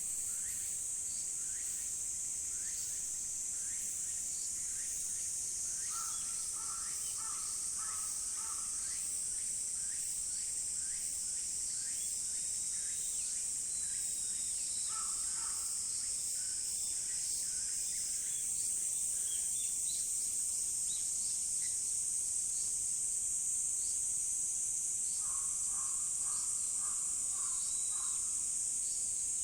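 Steady high-pitched shrilling of an insect chorus, with a crow cawing in short series three times: about six seconds in, around fifteen seconds, and near the end.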